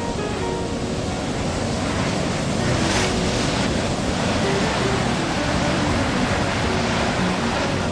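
Ocean surf breaking against rock boulders: a steady rushing wash, with one louder crash about three seconds in.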